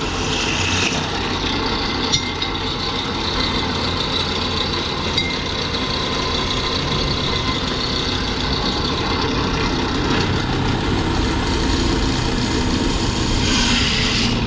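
A motor running steadily.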